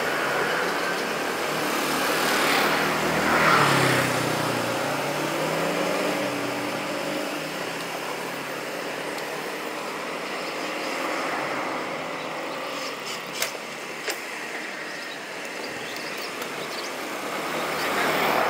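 City street traffic of motor scooters and cars with a steady rush of road noise. One engine passes close about three seconds in, its note dropping as it goes by, and there are a couple of light clicks around thirteen seconds in.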